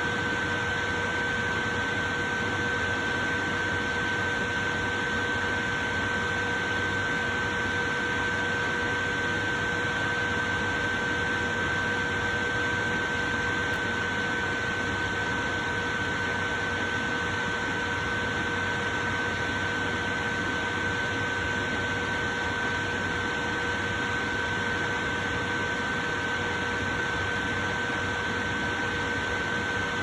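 Portable electric fan running steadily: an even rush of air with a constant motor whine held on one pitch.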